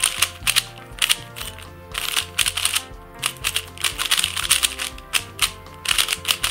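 Rapid bursts of plastic clicking from a cheap magnetic 3x3 speed cube as its layers are turned in quick succession. The cube is loose and stretched, badly in need of tensioning. Background music plays underneath.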